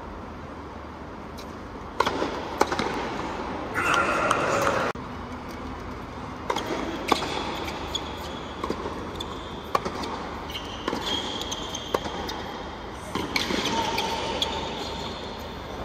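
Tennis ball being struck by rackets and bouncing on a hard court during a rally: sharp single hits spaced about a second or more apart over a low crowd murmur.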